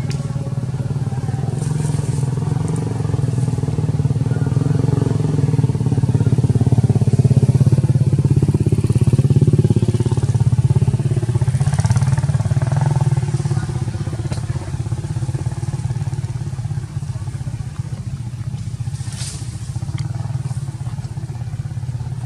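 An engine running steadily nearby, its note shifting slightly about halfway through, with a few faint clicks.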